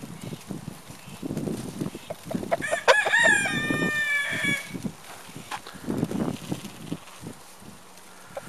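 Rooster crowing once, a cock-a-doodle-doo of about two seconds starting nearly three seconds in.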